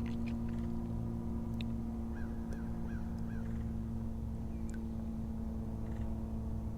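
A steady hum with overtones, and a bird calling four short notes in a row about two seconds in.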